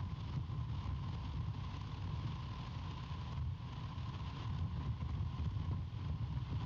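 Wind buffeting the outdoor nest-cam microphone: a steady, gusting low rumble with hiss above it, and a faint steady tone underneath.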